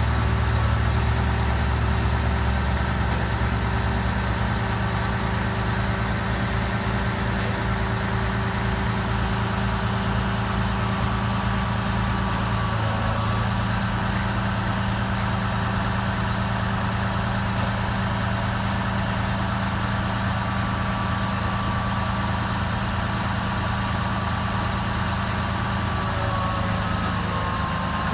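Heavy diesel engine running steadily at low revs, with a thin steady whine over the hum, while a Goldhofer modular trailer is rolled off a lowboy. The hum is a little heavier in the first few seconds.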